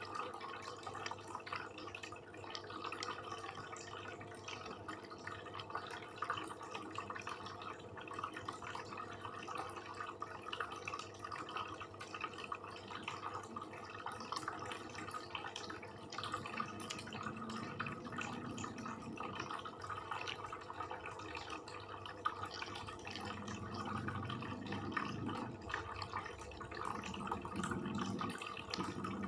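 A person chewing and eating close to the microphone: a steady run of small wet mouth clicks and smacks.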